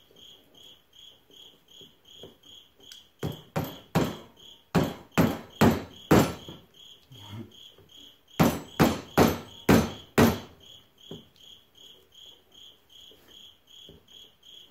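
Sharp knocks as the shift lever of a Honda Harmony 1011 lawn tractor is forced and struck in its slot, a dozen or so in two runs: starting about three seconds in and about eight seconds in, roughly two to three knocks a second. The lever is stuck. A faint high chirp repeats steadily about four times a second underneath.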